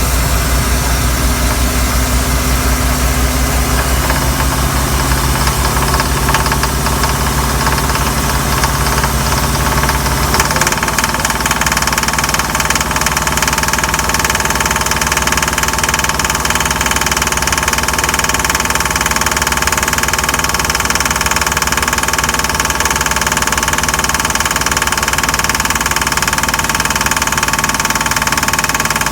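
Mercruiser 5.7 V8 boat engine running with a bad knocking noise, the knock that comes on under load. About ten seconds in the sound changes: the deep rumble drops away and a steadier, higher engine tone takes over.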